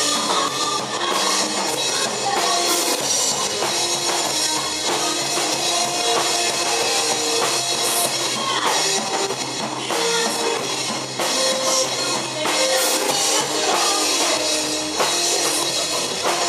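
Live rock band playing: electric guitar over a drum kit with cymbals, continuous and loud.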